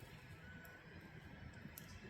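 Firewood burning in a Korean agungi firebox: a faint low rush from the fire, with two small crackles, one early and one near the end.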